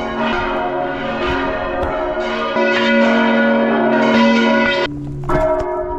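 Church bells in the basilica tower ringing loud and close, their tones held and ringing on. About five seconds in the sound breaks off and a fresh strike sets new tones ringing.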